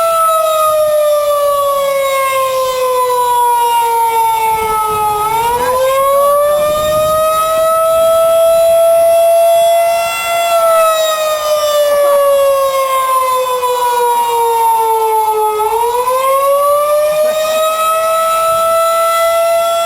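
Outdoor tornado warning siren sounding a steady tone for its monthly test. The pitch slowly sags for about five seconds, then climbs back quickly, and this happens twice.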